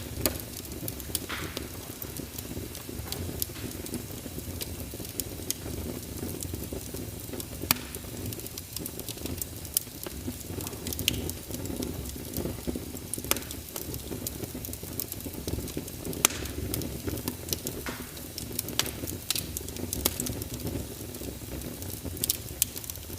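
Fire burning in a fireplace: a steady low rumble of flames with frequent, irregular sharp crackles and pops.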